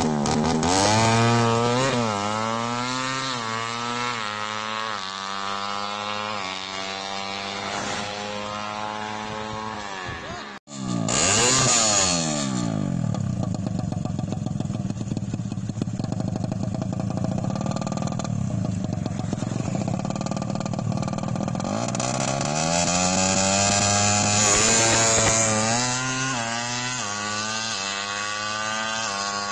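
Drag-tuned Suzuki Satria FU single-cylinder four-stroke engine with a racing exhaust, revved up and down over and over. The sound drops out abruptly about ten seconds in. It then runs steadier for a while before the revving rises again near the end.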